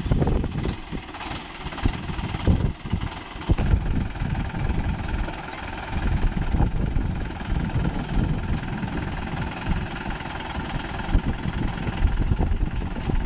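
Swaraj 843 XM tractor's three-cylinder diesel engine idling steadily.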